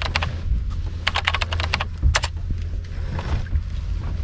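Computer keyboard typing sound effect: quick runs of keystrokes, the busiest about a second in, thinning out after two seconds, over a steady low rumble.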